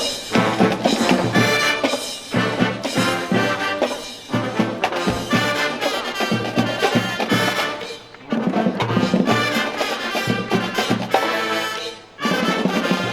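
Marching band playing brass music with drums, trumpets and trombones carrying the tune, with two brief breaks in the phrase about eight and twelve seconds in.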